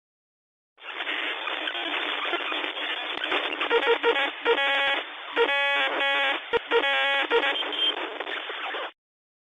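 Narrow-band radio static, thin like a telephone line, starting about a second in. Short bursts of pitched tones break through in the middle, and it cuts off suddenly near the end.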